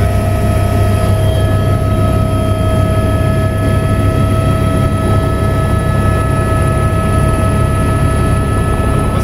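Helicopter in flight, heard from inside the cabin: a loud, steady drone of rotor and engine with constant high whining tones.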